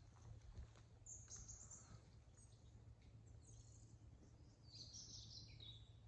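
Faint woodland bird calls: short high-pitched chirps about a second in and again around three and a half seconds, then a longer run of notes falling in pitch near the end, over quiet low background noise.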